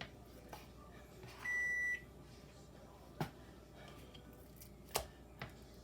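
A kitchen appliance's electronic beep: one steady high tone about half a second long. Later come two sharp knocks.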